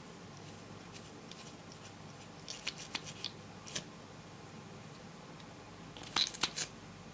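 Light plastic clicks and scratchy taps from a lip gloss tube and its applicator wand being handled, in two short clusters about three and six seconds in, over a faint steady hiss.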